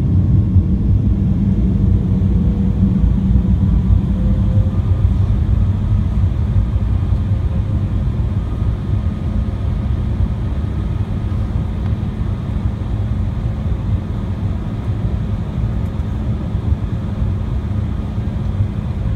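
Cabin noise inside an Embraer 175 regional jet taxiing: a steady low rumble from its GE CF34 turbofan engines and airframe, with a faint steady engine whine above it.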